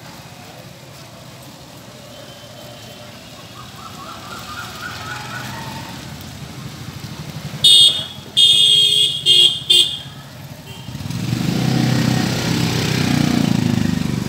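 A motor vehicle going by: an engine rumble builds, the horn honks four times in quick succession about eight seconds in, and then the vehicle passes with a loud swell of engine and road noise near the end.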